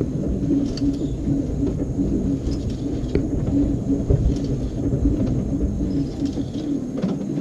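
An LG 18 kg washing machine agitating an overloaded load of jeans: a steady low motor rumble with a pulsing churn and faint light knocks.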